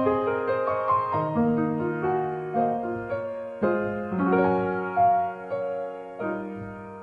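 Background solo piano music, slow struck notes and chords that ring and die away, growing quieter near the end.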